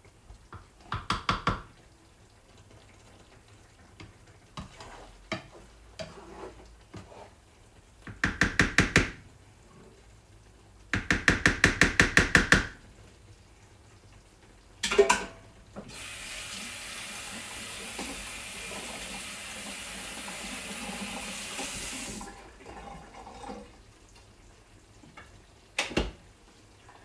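Three bursts of rapid, evenly spaced clicking, about six a second, then a kitchen tap running for about six seconds in the second half, with a single sharp knock near the end.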